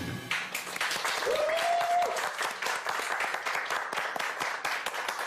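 Small audience applauding at the end of a live music performance, with dense, uneven hand clapping throughout. One short whoop is heard about a second in.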